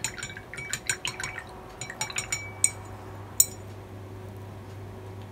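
Paintbrush being swished in a glass jar of rinse water, its handle knocking against the glass in a quick, irregular run of clinks that ring briefly, for about three seconds.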